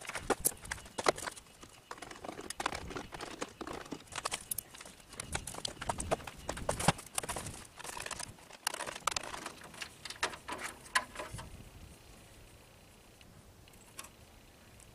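Irregular clicks, knocks and clatter of a screwdriver and the front panel of a portable air conditioner as the panel is unscrewed and lifted off. The clatter dies down after about eleven seconds.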